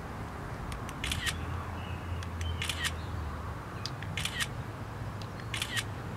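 iPhone camera shutter sound clicking three times, a few seconds apart, as a Bluetooth remote fires off photos.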